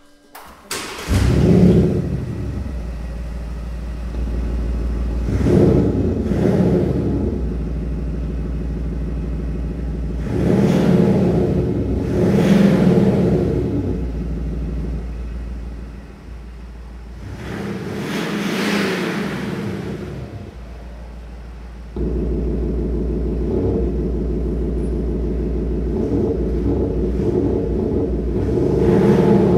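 Mercedes G400d diesel engine started by push button about a second in, then blipped several times, each rev rising and falling back to a steady idle, heard from the exhaust tips. The exhaust note is boosted by an active sound system, and the idle gets suddenly louder about two-thirds of the way through.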